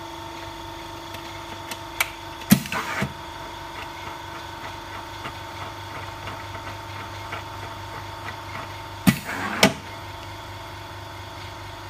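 OCA laminating machine running its vacuum suction with a steady hum. A few sharp metal clicks and knocks sound as the roller carriage and hinged vacuum plate are moved, a pair about two and a half seconds in and another pair near nine seconds.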